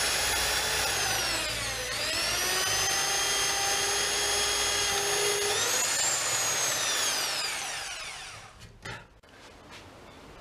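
Corded electric drill boring through a pine batten: a steady motor whine that dips in pitch about two seconds in and climbs back, rises again briefly, then winds down to a stop as the trigger is let go. A few light knocks follow near the end.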